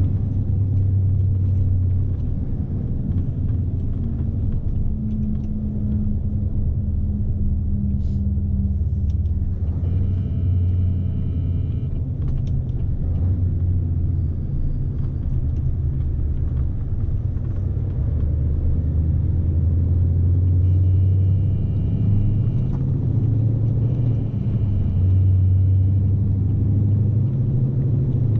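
Scania S520's V8 diesel engine running under way, heard from inside the cab as a steady low rumble. Brief high whining tones come in three times: about ten seconds in and twice in the last third.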